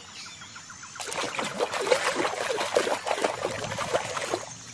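Soapy water splashing and sloshing in a plastic basin as a hand washes a toy in it, starting about a second in and dying away just before the end.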